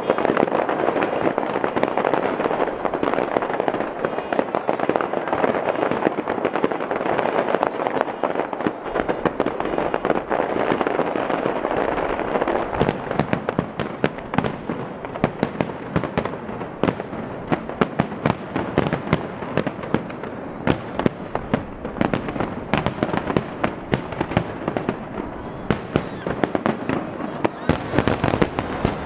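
Aerial fireworks shells bursting in quick succession: many sharp bangs over a continuous crackle, with the bangs coming thicker after about twelve seconds.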